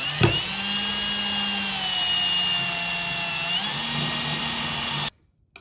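Handheld electric drill running steadily with a high whine. Its pitch sags slightly, comes back up about three and a half seconds in, and the sound cuts off abruptly near the end.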